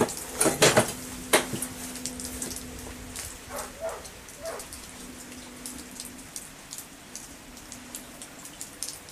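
Handling noise at a rifle bench rest: a few sharp clicks and knocks in the first second and a half as the shooter shifts the scoped bolt-action rifle, then scattered light ticking over a faint steady hum.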